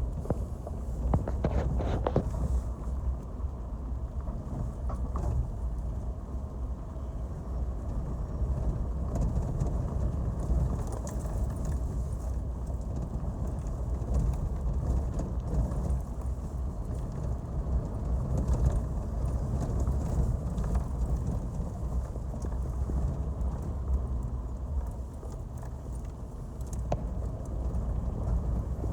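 Off-road 4x4 driving over a rough dirt forest road: a steady low rumble with irregular knocks and rattles as it bumps along.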